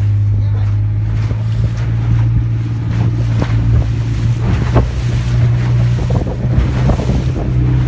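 Small fibreglass boat motoring through choppy sea: its engine gives a steady low hum while the hull slaps and splashes through the waves. Wind buffets the microphone throughout.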